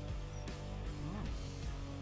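Background music with held notes.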